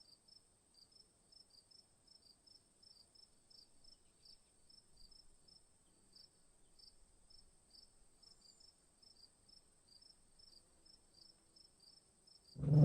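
Crickets chirping faintly and steadily in an even rhythm, about two and a half chirps a second, over a thin, steady high insect hum.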